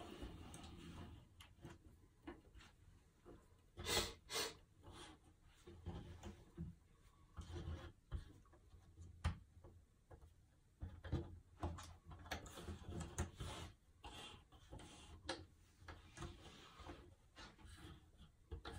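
Paperboard jigsaw puzzle pieces being slid, shuffled and set down on a tabletop by hand: faint rubbing with scattered light clicks and taps, and a louder pair of knocks about four seconds in.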